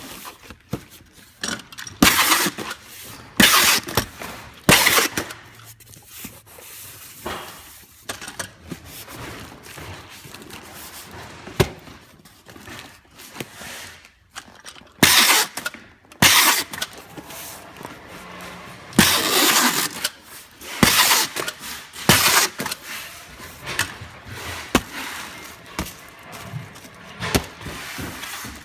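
Packing tape being pulled off a handheld tape gun dispenser and pressed onto a cardboard box, a rasping screech in short bursts: three a few seconds in, then another run of about five from about halfway, with rustling and handling of cardboard between.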